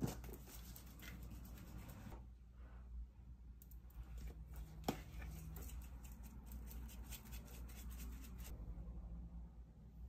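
Spice shakers being shaken over a mixing bowl: faint runs of quick rattling ticks from the seasoning, with one sharper click about five seconds in.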